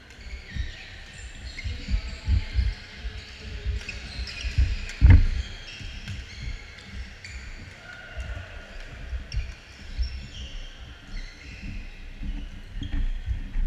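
Sneakers squeaking and thudding on a wooden gym court during badminton play, with scattered racket-on-shuttlecock hits. The loudest is one sharp thump about five seconds in.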